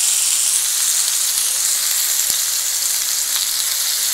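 Skewered cream-marinated chicken pieces (malai boti) sizzling on a hot, oiled ridged grill pan: a steady, high hiss.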